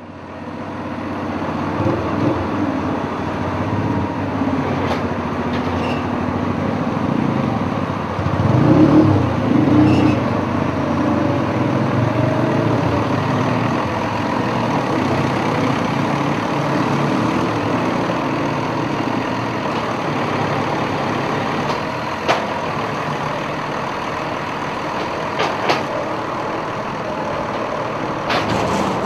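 Tractor engine running steadily while its front-end loader handles a large square hay bale, rising and falling in revs about eight to ten seconds in. A few sharp knocks or clicks come in the later part.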